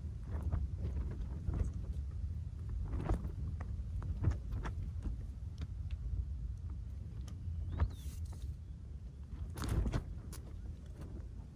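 Wind rumbling on the microphone, with scattered light knocks and clicks of gear being handled.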